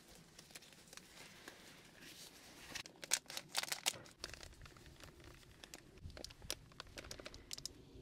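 Crinkling and rustling with light clicks and taps, as of packaging and utensils handled while preparing food in a small room, densest about three to four seconds in.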